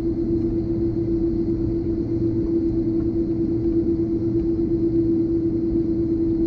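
Airbus A330-200 cabin noise by the wing while taxiing onto the runway: the engines at taxi power give a steady low rumble with one steady droning tone, neither rising nor falling.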